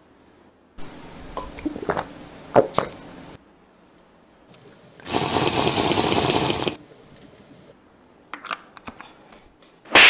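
Water splashing and sloshing from a plastic bottle. A few sharp knocks come in the first three seconds, then a loud, even rush of water starts about five seconds in and lasts nearly two seconds.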